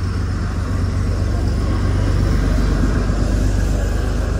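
Heavy truck engine running on the road, a steady low rumble that swells slightly in the middle.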